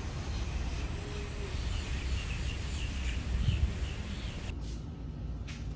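Steady outdoor background noise with a low rumble, and a quick run of short, high chirps about two seconds in.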